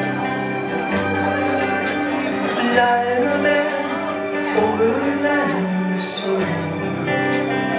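Live band playing an instrumental passage of a mellow soft-rock song: acoustic guitars and an electric guitar over electric bass notes and a steady drum beat with regular cymbal hits.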